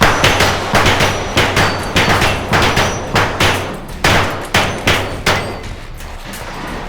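A rapid string of gunshots from a timed shooting drill, roughly three shots a second for about five seconds, then the firing stops.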